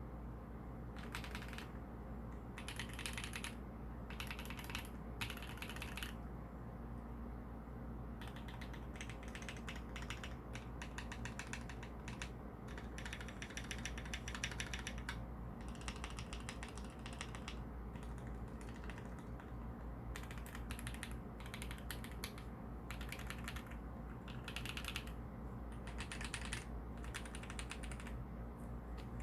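Keys being typed on a BUFF67 V2 mechanical keyboard with an aluminium plate: clicky keystrokes in short groups of about a second, with longer continuous runs in the middle and again toward the end.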